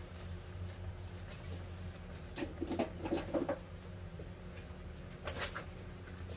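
Small haircut handling sounds, a comb working through a child's short hair and scissors snipping, heard as a cluster of short clicks and scratches about two and a half to three and a half seconds in and a brief sharp one about five seconds in, over a steady low hum.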